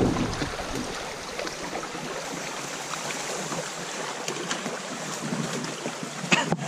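Shallow creek water running over rocks, with splashing and a few sharp knocks near the end as a kayak is hauled through a narrow reed-choked channel.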